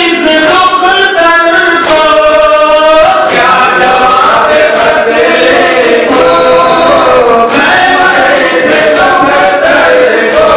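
Men chanting a nauha, a Muharram lament, in a held, melodic recitation, with more voices joining and overlapping about three seconds in.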